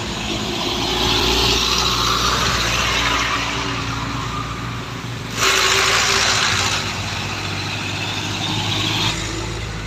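Road traffic passing close on a dirt road: truck and car engines running as they go by, under a steady rush of tyre noise. About five seconds in, the noise rises suddenly as another vehicle passes close, then eases off near the end.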